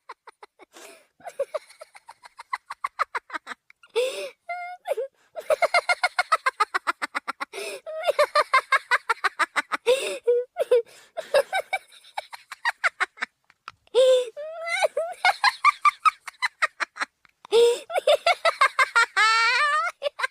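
High-pitched cartoon laugh sound effect made from a modified stock laugh: runs of fast, staccato cackling, several bursts with short breaks between them, the pitch sliding up and down in places.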